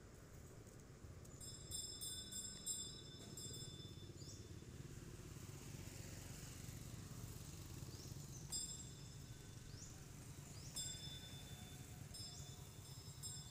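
Wild birds calling: short high rising chirps and a few bursts of rapid, ringing high trills, over a faint low steady rumble.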